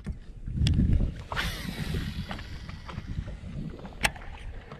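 Shimano Curado DC baitcasting reel's spool spinning freely and winding down with a rough, noisy sound, which the owner blames on bad bearings. A sharp click comes about four seconds in.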